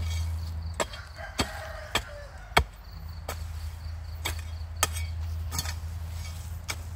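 A hoe blade chopping into hard, compacted old potting soil, about nine strikes a half-second to a second apart, the loudest about two and a half seconds in. The soil is being broken up into loose crumbs so it can be reused.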